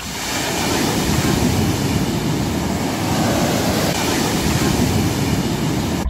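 Shallow sea surf washing up over a sandy beach: a steady rushing of water.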